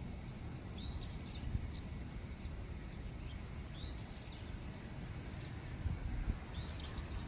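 Small birds giving short, high chirps, several scattered through, over a steady low rumble of outdoor background noise.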